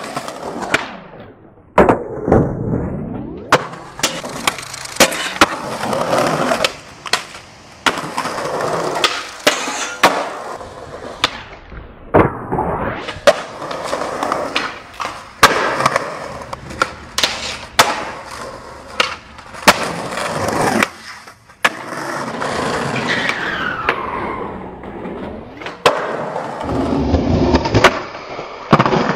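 Skateboard wheels rolling on concrete, broken by many sharp pops of the tail and clacking landings of the board.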